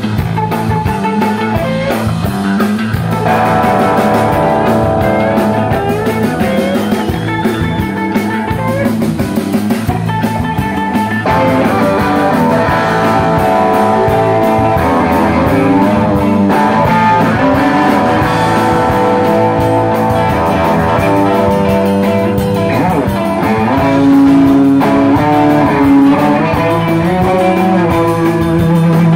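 Live rock band playing loudly: electric guitars and bass over a drum kit.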